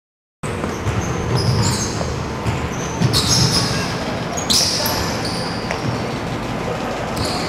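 Basketball play on a hardwood gym court, coming in suddenly about half a second in: sneakers squeak sharply several times, a ball bounces, and a steady hall hubbub carries underneath.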